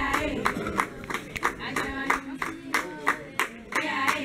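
A group clapping hands in a steady rhythm, about three claps a second, beating time for a dance. Voices call and sing between the claps.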